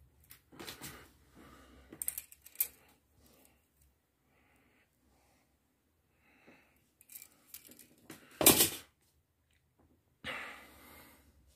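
Handling noises: scattered rustles and light clicks of a hand and a steel tape measure against a large rough rock and the cloth beneath it, with one louder short rustle about two-thirds of the way through and another rustle near the end.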